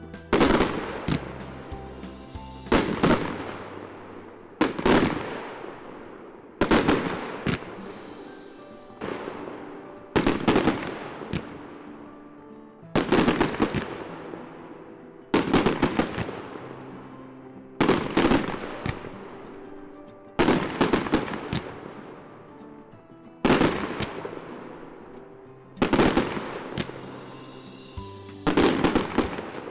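Fireworks going off, with a sharp bang every two to three seconds, each followed by fading crackles, over background music.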